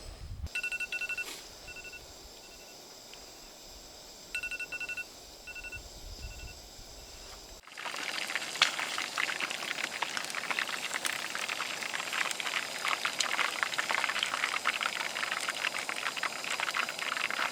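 A digital kitchen timer beeps in two short runs of electronic beeps, signalling that the frying time is up. About eight seconds in, after a cut, chicken pieces fry steadily in hot oil with a dense crackle.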